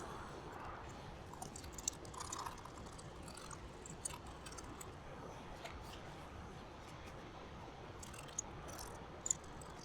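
Faint dry scraping and crackling as old coating is scraped off a glass neon tube over paper, with scattered small ticks and a few sharper clicks, the loudest about two seconds in and near the end.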